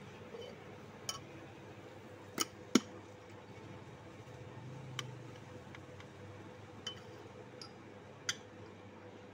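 Scattered sharp metallic clinks and taps, about seven in all, as metal filter parts are handled and fitted on a tractor's engine by hand; the loudest pair comes close together a little under three seconds in.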